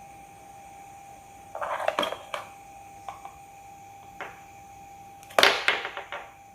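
Clicks and light rattles of earphones and a phone being handled: a cluster about a second and a half in, a few lone ticks, and a louder cluster near the end, over a faint steady high-pitched whine.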